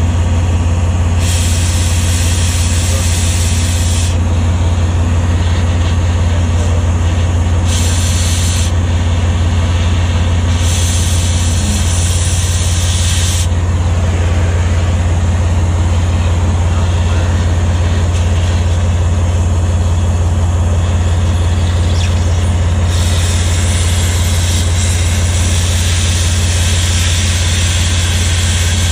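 Oxy-fuel cutting torch hissing as it cuts old weld off a motor grader's blade keeper. The loud cutting hiss comes and goes in spells: about a second in, near eight seconds, around eleven to thirteen seconds, and steadily from about 23 seconds on. Underneath, an engine idles steadily and is the loudest sound throughout.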